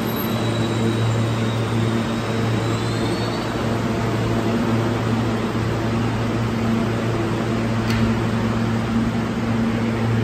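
R160 subway train standing at an underground platform, its on-board equipment and air-conditioning giving a steady hum over an even hiss, with one faint click about eight seconds in.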